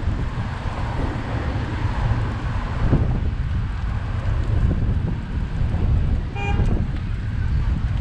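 Wind rumbling on the microphone of a moving bicycle, with road traffic beneath it. A short car horn toot sounds about six and a half seconds in.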